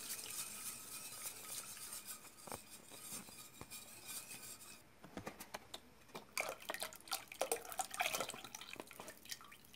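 Wire whisk beating a thick flour-and-milk paste in a stainless steel pot, its wires scraping and clicking against the pot's sides and bottom, with a run of sharper clicks in the second half.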